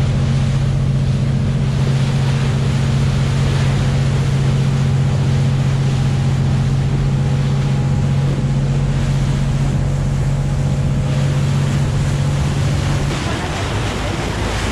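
Tour boat's engines running with a steady low drone, over wind on the microphone and rushing water along the hull. Near the end the engine hum drops away, leaving wind and waves.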